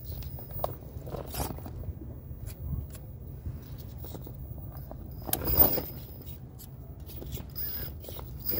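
RC rock crawler's tyres and chassis scraping and clicking against rock as it climbs a steep face, with one louder, longer scrape about five and a half seconds in. A steady low hum runs underneath.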